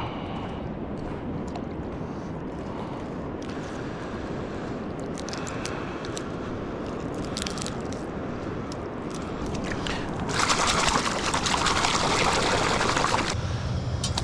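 Water at a calm pebbly shoreline washing and trickling while a freshly killed Dungeness crab is cleaned and rinsed by hand in the sea, with a louder rush of splashing water for about three seconds near the end. A steady low hum starts just before the end.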